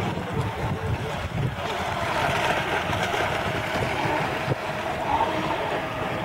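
Radio-controlled model racing boat running at speed across the water, its motor a steady high whine that grows louder about a second and a half in, with wind rumbling on the microphone.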